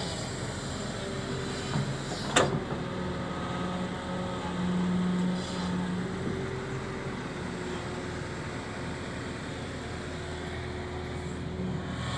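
Kobelko HD crawler excavator's diesel engine running steadily under hydraulic load while digging and swinging buckets of soil, its note swelling for about a second near the middle. A single sharp knock about two seconds in.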